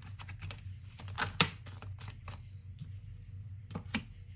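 Tarot cards being handled and laid down: a run of light clicks and rustles, with a louder slap of a card about one and a half seconds in and another near the end, over a steady low hum.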